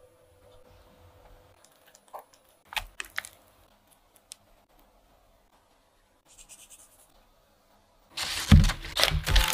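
A few faint clicks and scrapes of a wooden spoon working puree in a glass bowl, with long quiet stretches between them. About a second before the end, loud strummed guitar music comes in.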